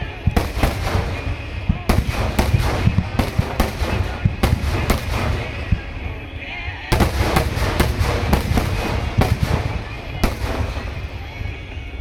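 Aerial firework shells bursting in a rapid finale barrage: many overlapping booms and cracks over a constant low rumble. The barrage eases briefly about halfway through, then builds again.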